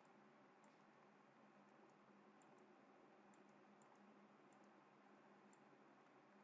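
Near silence: a faint steady hum with faint, irregular clicks of a computer mouse.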